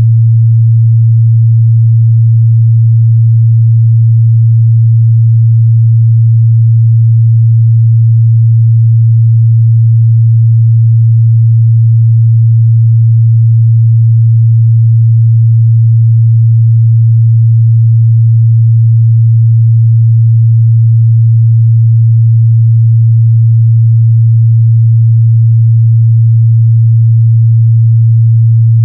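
A continuous pure sine tone at 114 Hz, a steady low bass hum held at one pitch and level throughout, used as a test signal for checking speaker and headphone response.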